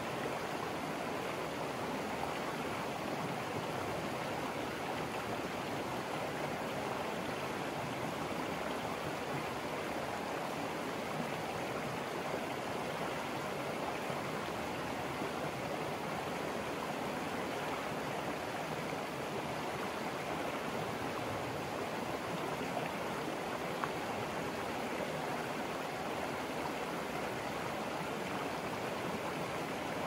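Shallow river water rushing over rocks in a riffle: a steady, even splashing that does not change.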